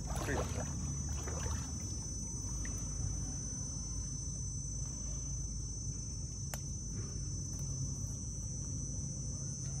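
Steady high-pitched insect chorus over a low steady hum, with one sharp click about six and a half seconds in.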